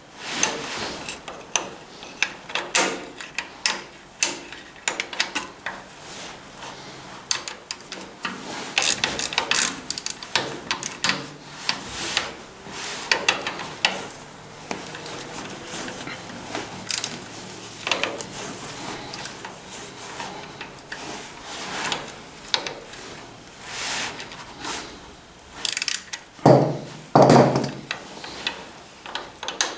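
Ratchet wrench clicking in irregular runs as an oil pan bolt on a tractor is worked loose, mixed with small metal clinks of tools. Two louder clunks come near the end.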